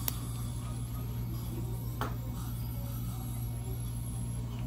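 Steady low hum with two faint clicks about two seconds apart, as orthodontic pliers work on the wires and brackets of braces.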